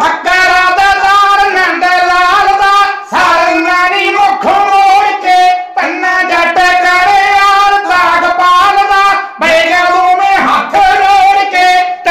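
Kavishri singing: a group of men's voices singing together in Punjabi, unaccompanied, in long held phrases with short breaks every few seconds.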